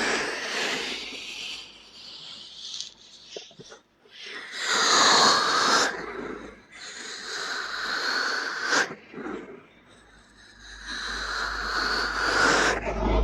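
Ear-cleaning ASMR scratching and rubbing right against the microphone's ear, a noisy sound that swells and fades every second or two, loudest about five seconds in and again near the end.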